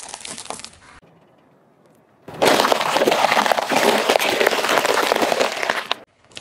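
A car tyre rolling over and crushing bell peppers: a loud, dense run of crunching and cracking for about three and a half seconds, stopping suddenly. In the first second there are a few quieter crunches and clicks.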